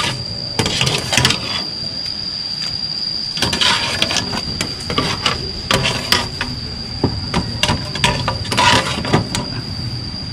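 Metal ladle and pot clattering with scattered knocks as boiled chicken wings are scooped out into a basin, over a steady high-pitched whine.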